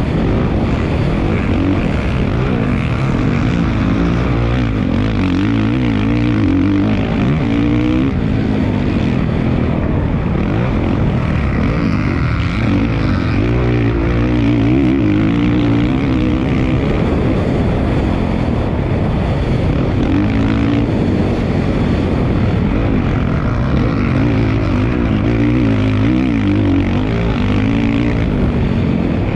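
Dirt bike engine running hard on a motocross track, its pitch repeatedly rising and falling as the throttle is opened and closed, over a steady rush of noise.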